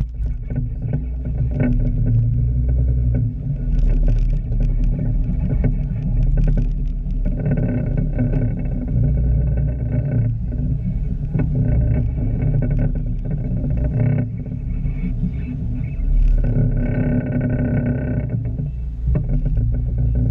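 Open-top Jeep driving slowly over a rutted dirt off-road course: the engine runs under a heavy low rumble of wind on the microphone, with scattered knocks and rattles from the body and roll cage over bumps. Twice a stronger humming note from the drivetrain comes in for about two seconds.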